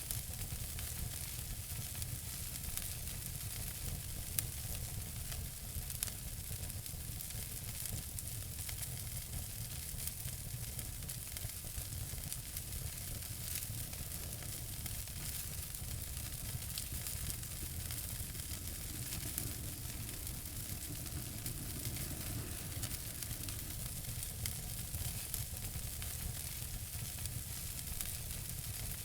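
Wood fire burning in a fireplace: a steady hiss and low rumble with frequent small crackles and pops scattered throughout.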